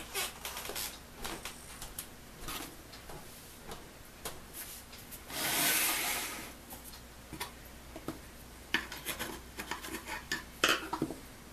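Open sheet-metal battery charger case being handled and turned on a workbench, with scattered knocks and a scraping rub lasting about a second midway as the case slides on the bench top. Near the end a quick run of small clicks and taps as a screwdriver is picked up and worked among the wiring inside the case.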